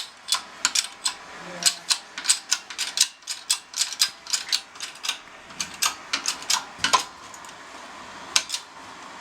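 A ratchet clicking in quick, even strokes, about three clicks a second, while driving a tool to press an old bushing out of a Mitsubishi Evo front control arm. The clicking stops about seven seconds in, with a couple of stray clicks later.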